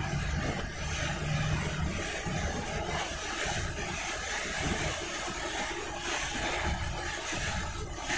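Scania coach driving through heavy rain, heard from inside the cab: a low engine rumble under a steady hiss of rain on the windscreen and tyres on the wet road.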